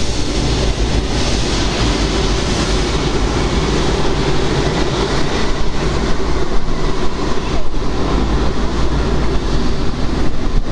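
Steady rushing noise of a Boeing 777's twin jet engines at low taxi power as the airliner rolls past, with a heavy low rumble throughout.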